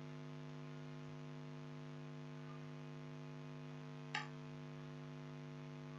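Steady low electrical hum made of several steady tones, with one brief faint tick about four seconds in.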